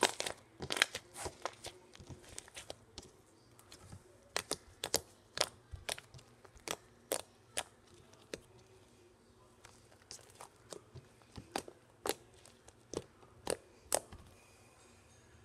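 Blue slime squeezed and kneaded by hand, giving a run of sharp, irregular pops and clicks, densest at the start and then more spaced out.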